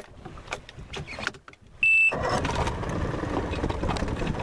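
A short, loud high beep about two seconds in, then the skiff's outboard motor running steadily, with faint knocks before it.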